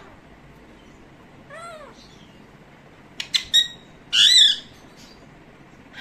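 Pet parakeet calling: a short rise-and-fall call about a second and a half in, a few sharp high clicks near the middle, then a louder rise-and-fall screech about four seconds in.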